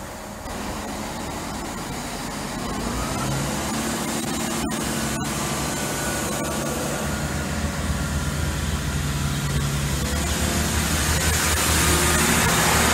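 Great Western Railway Turbo diesel multiple unit's underfloor diesel engines throttling up as the train pulls away from the platform. The engine note steps up a few seconds in and keeps getting louder, with rising wheel and air noise as it gathers speed.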